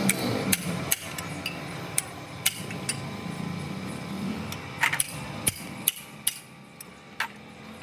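Hand tools tapping and knocking on metal: about ten sharp, irregularly spaced strikes, with a low background hum between them.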